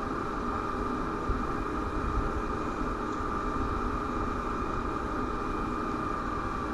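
Steady outdoor background noise from an eagle nest-cam microphone: a hiss with a faint electrical hum and a low rumble, and two soft thumps about a second and two seconds in.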